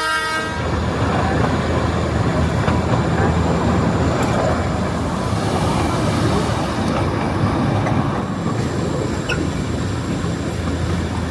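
Darjeeling Himalayan Railway narrow-gauge toy train running, a steady rumble of the moving carriage with a low hum underneath. The tail of a horn blast cuts off just after the start.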